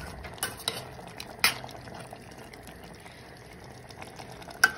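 Metal spoon stirring a thick meat, potato and tomato stew in a stainless-steel pot: wet sloshing of the sauce with a few sharp clinks of the spoon against the pot, the loudest about a second and a half in and near the end.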